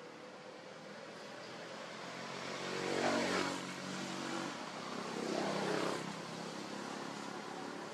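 A passing motor vehicle's engine. It swells to a peak about three seconds in, falling in pitch as it goes by, and a second swell comes around five to six seconds.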